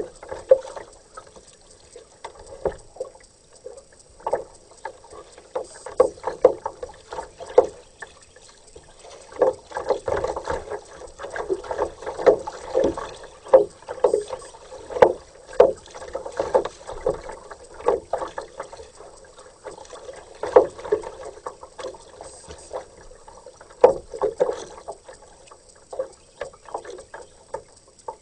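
Kayak paddle strokes: the blade dipping into and pulling through the river water in an uneven series of splashes, roughly one a second, with a few pauses.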